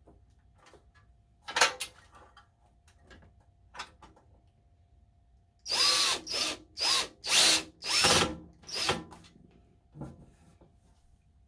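Power drill run in about six short bursts, its motor whine rising and falling with each pull of the trigger, after a few scattered clicks and knocks.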